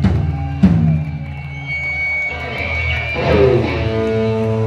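Live rock band playing electric guitars, bass guitar and drum kit. There are two sharp hits in the first second, and held, ringing guitar chords over a steady bass later on.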